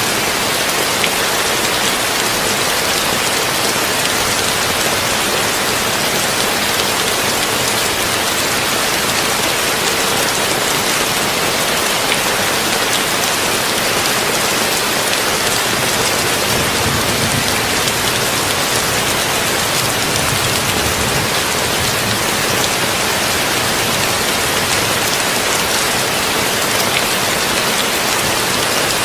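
Heavy rain falling steadily on a tin roof, an even, unbroken patter.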